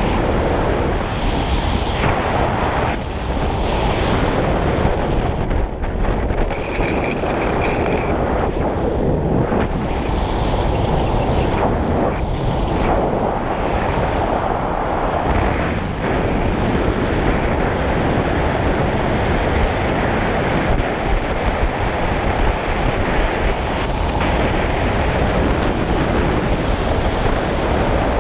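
Steady wind rush buffeting the microphone, from a car driving at speed.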